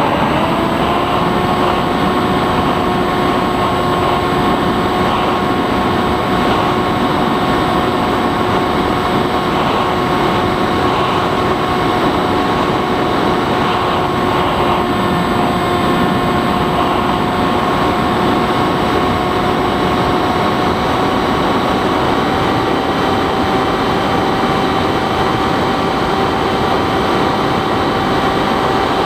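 Bixler 3 model plane's electric motor and propeller whining steadily in flight, over a broad rush of wind. The pitch rises at the very start and steps up a little again about twenty seconds in, as the throttle changes.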